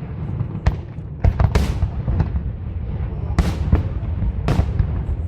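Aerial fireworks bursting in a quick irregular series of about eight bangs, some trailing off in a brief crackle or hiss, over a steady low rumble.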